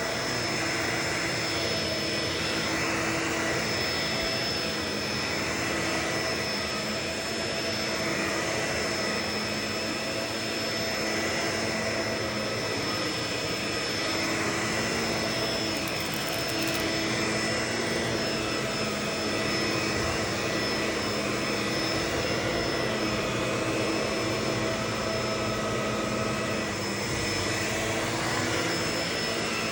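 Vacuum cleaner running steadily, a continuous suction roar with a high motor whine held at one pitch.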